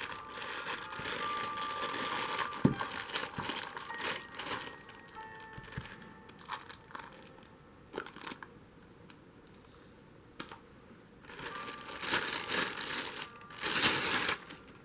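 Crinkling and rustling in irregular bursts, with a sharp click about two and a half seconds in. It goes quieter in the middle, then a loud burst of rustling comes near the end.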